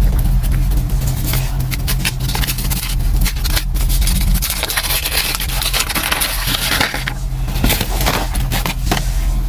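Gym chalk crunching and crumbling in wet glittery chalk paste under the hands, with dense crackles and squishes, then a fresh chalk block pressed and scraped into the paste with a longer hiss of grinding about halfway through. A low steady hum runs underneath.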